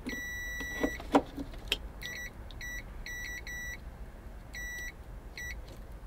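Electronic continuity tester beeping as the test lead makes and breaks contact on a corroded connector: one longer beep at the start, then a string of short, broken beeps. The beeps show the circuit coming up at the very rusty connector that he takes for the culprit of the fault. A few light clicks from the probe come in the first two seconds.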